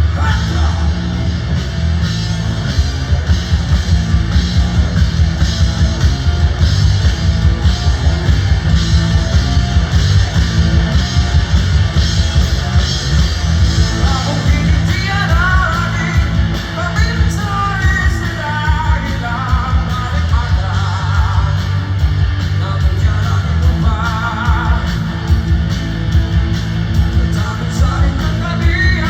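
Live rock band playing through a stage PA, with a fast steady drumbeat and heavy bass; a singer's voice comes in about halfway through.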